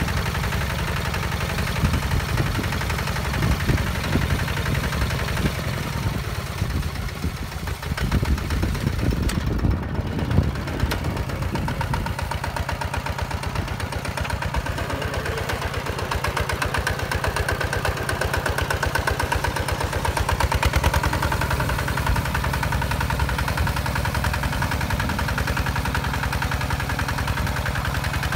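Single-cylinder diesel engine of a Hinota 155 DI two-wheel walking tractor running steadily with a rapid, even chug. It is working under load, pulling a disc plow through dry soil.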